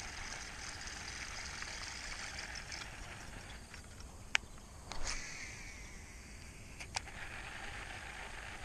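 Quiet outdoor ambience with a steady high hiss. About halfway through come a sharp click, then a brief swish that trails off falling in pitch, and another sharp click about two seconds later, from the angler handling his baitcasting rod and reel.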